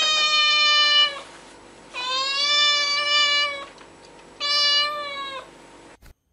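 Domestic cat meowing: three long, drawn-out meows at a steady pitch, the first already under way and each lasting over a second.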